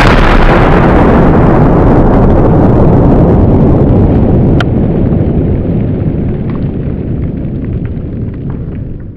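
A large Italian 'Gladiator' firecracker (60 g, Spanish-cracker style) goes off with a sudden blast, followed by a loud, rumbling noise that carries on for several seconds and slowly fades. There is a single sharp click about halfway through.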